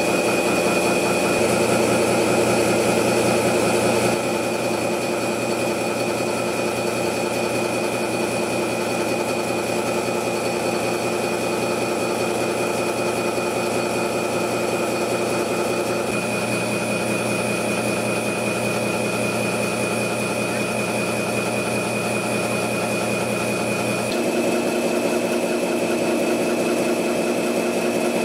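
CNC gear-cutting machine running as its rotating tool machines the teeth of a large spiral bevel gear: a steady mechanical hum with several high whining tones, changing abruptly about 4, 16 and 24 seconds in.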